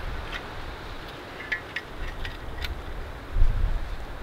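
Wind buffeting the microphone in a low rumble that swells briefly near the end, with about six light clicks and taps as a tool is handled and drawn from its fabric sheath.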